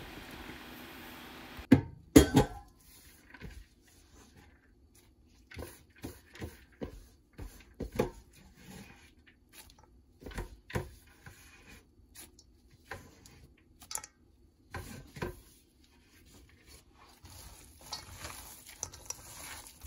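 Scattered knocks and clatter against a stainless steel mixing bowl as minced pork and diced vegetables are handled in it, the loudest cluster about two seconds in. Near the end the sound becomes a denser rustling as a gloved hand starts mixing the meat.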